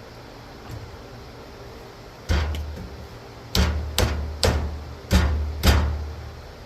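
Hammer blows on metal: six heavy knocks starting about two seconds in, coming faster toward the end, each leaving a low ringing that dies away.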